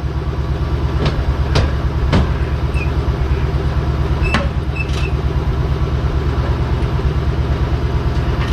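A vehicle engine idling steadily with an even low pulse, with several sharp clicks or knocks in the first few seconds.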